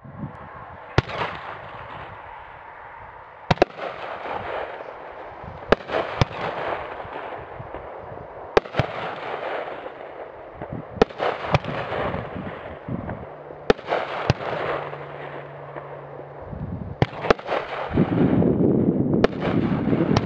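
Mad Ox Death Spiral 9-shot consumer fireworks cake firing: a series of sharp bangs every two to three seconds, some in quick pairs, as shells launch and burst, with continuous hissing and crackle between them. It grows louder near the end.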